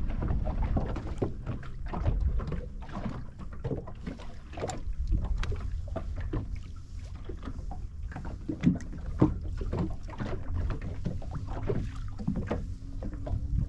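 Wind rumbling on the microphone and small waves lapping and slapping against the tube of a rigid inflatable boat, with irregular knocks and splashes.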